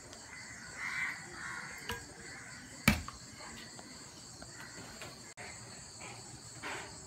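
Metal ladle clinking and scraping as curry is ladled from a pan into a glass bowl, with one sharp knock a little under three seconds in, over steady chirping of crickets.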